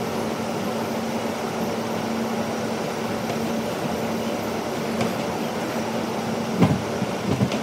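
MTA R160B subway car running through a tunnel, heard from inside the car: a steady rumble with a low, even hum. Two short, louder sounds come near the end.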